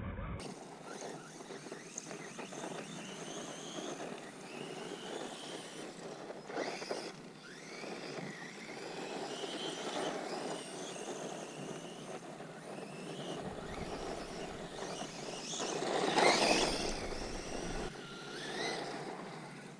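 Brushless electric motor of a ZD Racing Rocket 1/16-scale RC desert truck whining as it is driven, its pitch rising and falling with the throttle, with the loudest swell about three quarters of the way through.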